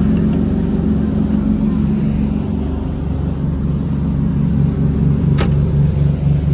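Inboard engines of a 1988 Ocean Yachts 48 Super Sport running steadily under way, a low, even drone. A single sharp click sounds about five seconds in.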